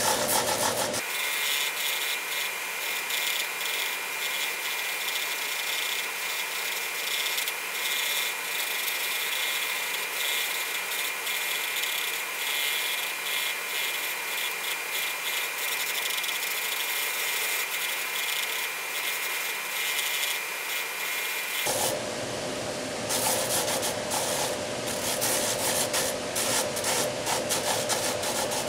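Wooden intarsia piece being sanded on a spinning drum sander: a continuous rasp of wood against the abrasive sleeve over the running motor. A steady high whine runs through most of it and gives way to a lower hum near the end.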